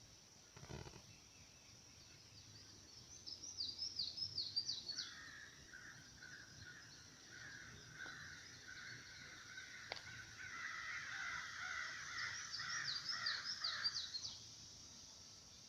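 Garden ambience: a steady high insect hum throughout, with a songbird's phrase of quick down-slurred notes twice, about three seconds in and again near the end, and a lower, longer bird call running through the middle. A single soft knock comes just under a second in.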